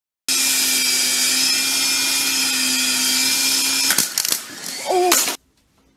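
A loud, steady motor whir with a constant hum, like a small electric appliance running, that stops just before four seconds in. A few sharp knocks and a brief pitched squeak follow near five seconds, and then the sound cuts off suddenly.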